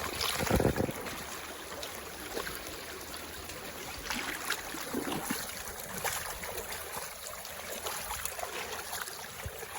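Creek water rippling and trickling steadily over shallow riffles, with a few short knocks, the loudest about half a second in.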